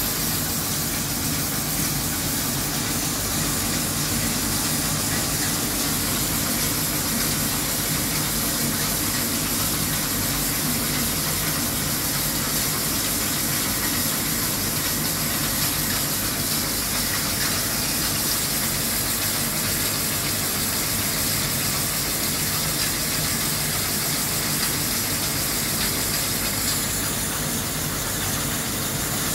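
A CNC machining centre rough boring a bore with an old URMA roughing head taking about 3 mm per side, under flood coolant. A steady hiss and splash of coolant spray over the low, even hum of the spindle and cut.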